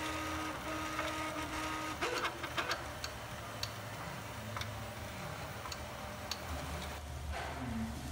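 UP3D desktop 3D printer printing: its stepper motors whine in short, even tones for the first two seconds, then the sound turns to scattered clicks and ticks as the print head keeps moving.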